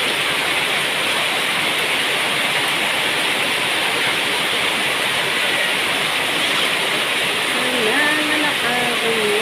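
Heavy rain pouring down in a steady, loud hiss. Near the end a few short pitched tones sound faintly over it.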